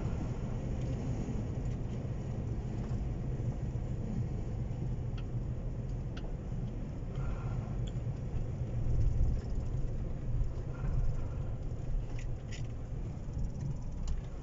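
Low, steady rumble of an Iveco Hi-Way truck's diesel engine and road noise heard from inside the cab, with a few faint clicks in the second half.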